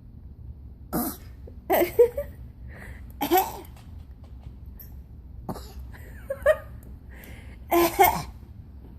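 A person coughing: a string of short, separate coughs, some in quick pairs, spread over several seconds.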